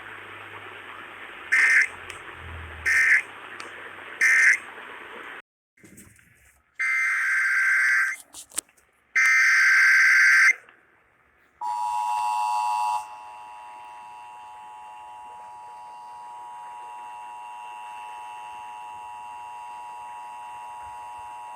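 Emergency Alert System tones on a radio broadcast. Three short data-burst screeches over radio hiss (the end-of-message code of the finished warning) are followed a few seconds later by two longer data-burst screeches (the digital header of the next alert). Then comes the steady two-tone attention signal, loud for about a second and then continuing more quietly.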